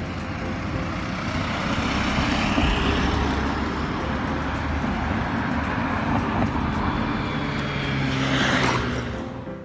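Road traffic close by: a steady rumble of passing cars. It swells as vehicles go past, the loudest about two seconds from the end, then falls away quickly.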